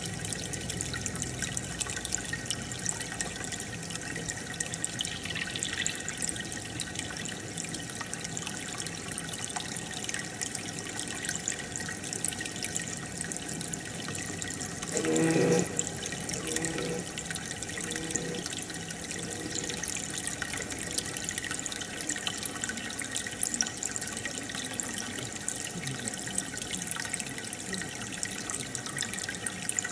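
Aquarium water bubbling and trickling steadily from the air bubbler, with a brief louder pitched sound about halfway through.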